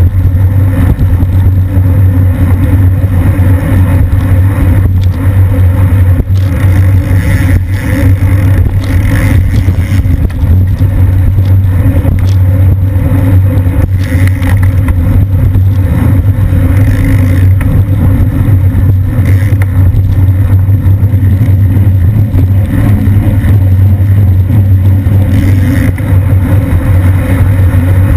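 Loud, steady low wind rumble on the microphone of a bike-mounted action camera moving at about 22 mph in a racing pack.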